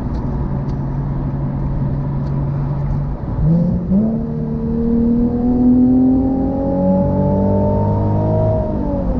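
Nissan VQ-series V6 engine running steadily at low revs, then the revs jump a little past three seconds in and climb steadily under acceleration for about five seconds, dropping again just before the end.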